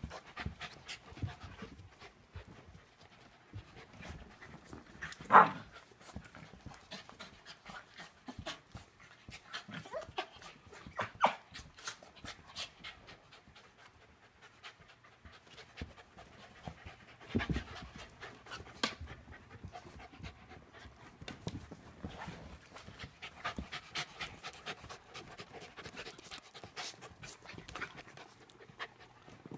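Dogs panting hard as they play-wrestle, with scattered short sharp sounds through it; the loudest comes about five seconds in.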